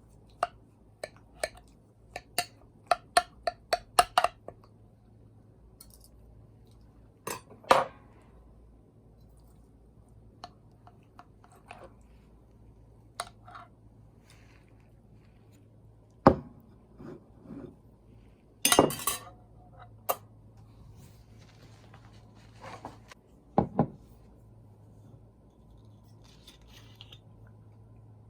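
Kitchenware clinking and knocking: a quick run of light clinks of utensils against dishes in the first few seconds, then scattered single knocks and clatters, the loudest about halfway through.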